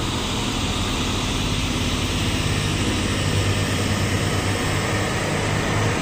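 Nissan diesel truck's engine labouring as it pulls away uphill under load, a steady low drone that grows stronger about halfway through.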